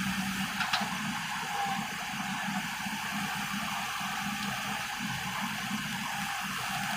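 Diesel engines of several Hyundai hydraulic excavators running steadily as they hold a steel pipeline on slings: a steady low hum under an even rushing noise.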